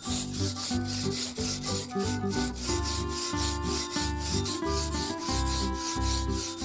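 Hand saw cutting through a block of soft pressed tufo stone, with quick back-and-forth rasping strokes at about three a second.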